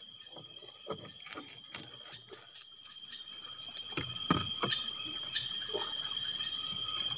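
A knife chopping small bait fish against a wooden plank, a string of irregular knocks. Steady high-pitched night insects run underneath.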